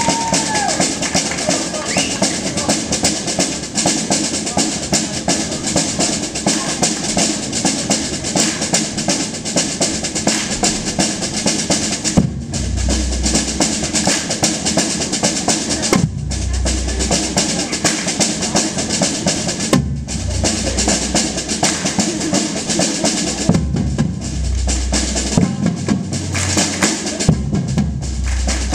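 Batucada-style drum ensemble playing live: dense, driving percussion with higher drums and wood-block-like clicks, joined about twelve seconds in by deep bass drum strokes that come and go in phrases.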